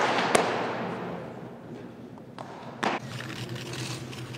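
Sharp pops of baseballs striking leather or wood, echoing in a large indoor practice hall: two close together at the start, the first ringing on for about a second, and a third about three seconds in.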